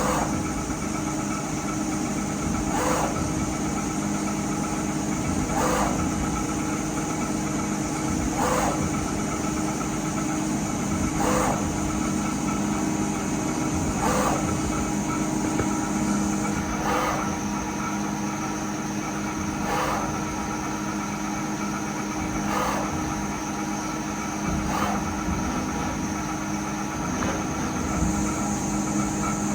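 A machine running with a steady hum made up of several held tones, and a short tick that repeats about every three seconds.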